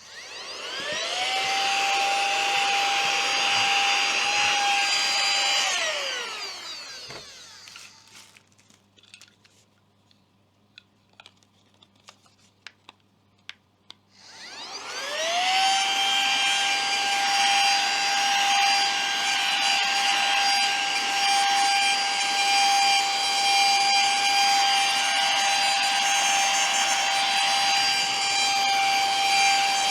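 Silvercrest mini cordless handheld vacuum cleaner's small electric motor spinning up with a rising whine, then running steadily with a high whine, used for a suction test on ground pepper. It winds down about six seconds in. After a lull with a few light clicks, it spins up again about fourteen seconds in and runs on steadily.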